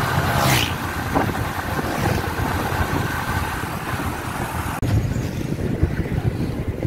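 Vehicle engine running with wind noise on the microphone while travelling along a road. A little under five seconds in, the sound cuts abruptly to quieter street ambience, still with wind on the microphone.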